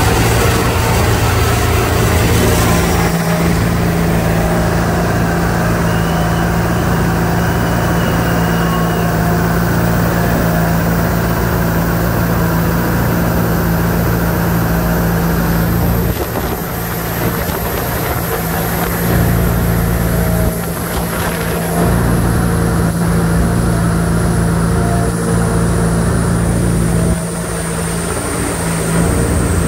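Tuned Mitsubishi Lancer race car engine, around 1000 hp, running steadily at idle on a chassis dyno, dipping briefly three times. A faint high whine falls slowly in pitch throughout as the dyno rollers spin down in the coast-down losses test after a full-power run.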